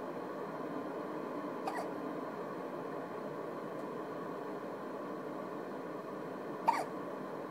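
A sleeping baby hiccuping twice: a faint hiccup about two seconds in and a sharper, louder one near the end, over a steady background hiss.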